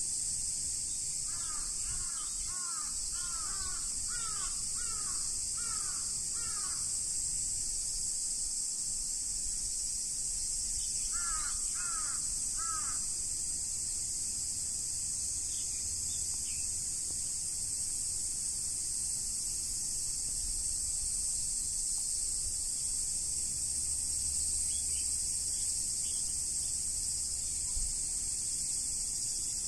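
A crow cawing in a quick run of about nine caws, then three or four more some ten seconds later, over a steady high-pitched hiss of insects.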